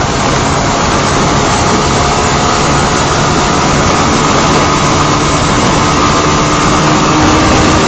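Wind rushing over the microphone of a moving Honda CBR125 motorcycle, with its single-cylinder engine running steadily underneath.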